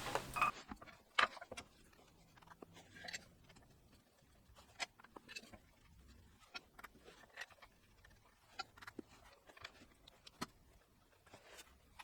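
Faint, scattered clicks and light taps from hand tools and small parts being handled, with long quiet gaps between them.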